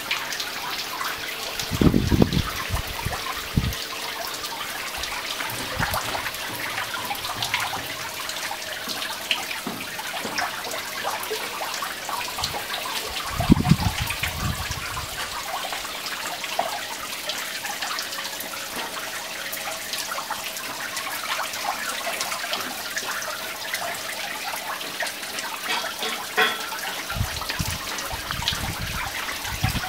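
Water falling and trickling from a decorative cement-rock waterfall and a small fountain jet into a basin, a steady splashing patter. Short low thumps about two seconds in and near the middle.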